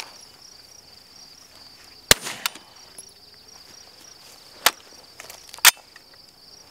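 Three single gunshots from a KRISS Vector CRB carbine in .45 ACP. The first comes about two seconds in, followed shortly by a fainter click, and the other two come about a second apart later on. Insects chirr steadily in the background.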